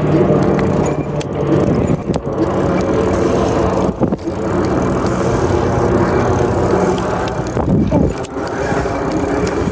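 Bike being ridden on a wet road: steady tyre and wind noise with a low hum, and a brief rise and fall in pitch near the end.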